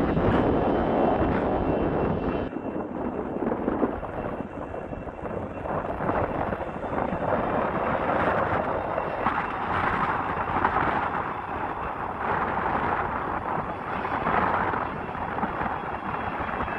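Jet aircraft engines running: a steady noise whose sound changes abruptly about two and a half seconds in.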